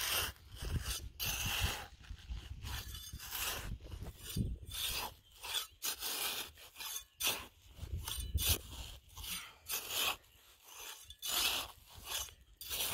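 Hand trowel scraping and digging into dry, gravelly sandy soil in a string of irregular strokes, loosening the soil around a grass tuft to dig it out with its roots.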